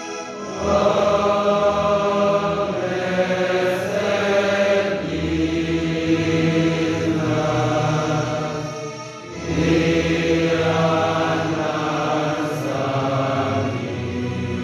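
A large group of students singing together in a hall, slow sustained chant-like phrases with a short break about nine seconds in before the voices come back in.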